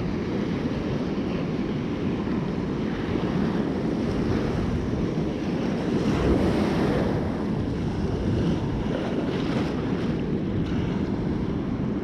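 Rough sea surf washing and breaking around the shore, with wind buffeting the microphone. A wave breaks and the rush swells louder about halfway through.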